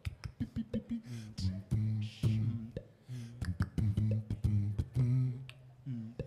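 Beatboxing over a low hummed vocal bass line: sharp mouth clicks and snare sounds in a steady rhythm over deep held notes, all made by voice into microphones.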